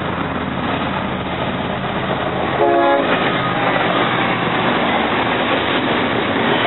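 Double-stack container freight train rolling past, a steady rumbling noise of the cars going by, with a short horn blast about three seconds in.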